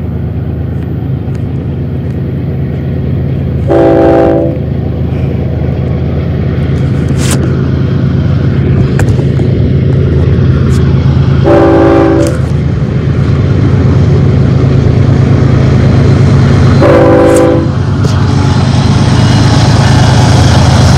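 BNSF diesel locomotives approaching, their engines giving a steady low rumble that grows louder. The air horn sounds three short blasts, each under a second and several seconds apart. Near the end a rising rushing noise joins in as the train draws close.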